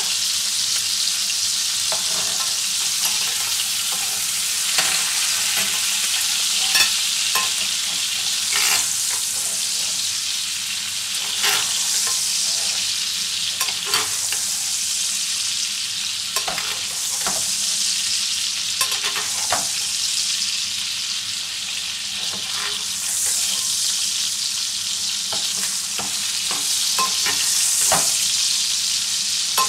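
Beef entrecote steak sizzling in hot foaming butter in a stainless steel frying pan while the butter is spooned over it to baste it. A steady high sizzle with frequent short pops and crackles throughout.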